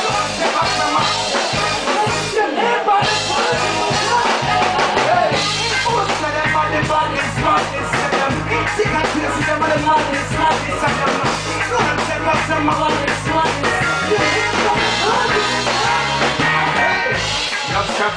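Live reggae band playing loud: drum kit, electric guitar and bass guitar keeping a steady beat.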